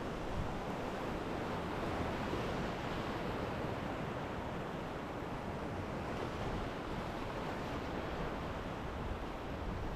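Whitewater rapid rushing steadily, a continuous noise of churning river water.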